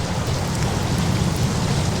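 Steady hiss of rain and surf over a low rolling rumble of thunder that swells slightly partway through.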